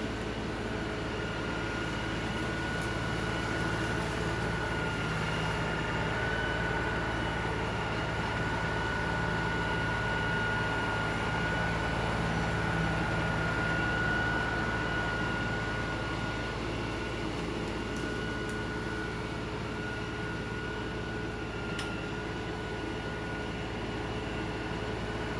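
LS XR3135 compact tractor's diesel engine running steadily, with a high steady whine over the engine note, growing a little louder in the middle, while its hydraulic grapple works in downed brush.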